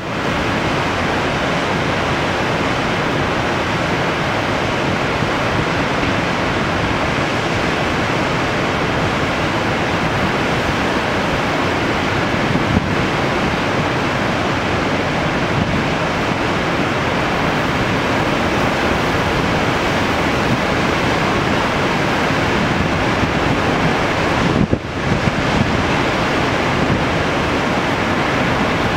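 Steady rush of high spring floodwater pouring over a long dam spillway and churning below it. There is a brief bump and dip in the sound about 25 seconds in.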